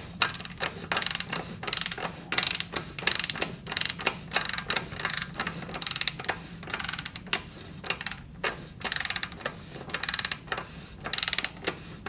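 Ratchet wrench clicking in short bursts of rapid ticks, about two a second, as it is rocked back and forth on a motorcycle's swingarm axle bolt to feel for play in an axle suspected to be bent.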